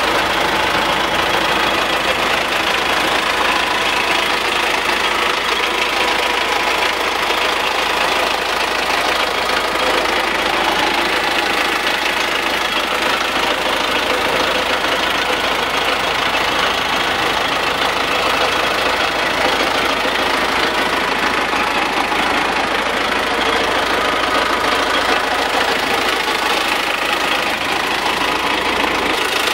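GAZ-3309 garbage truck's four-cylinder MMZ D-245 diesel engine idling steadily, with diesel clatter.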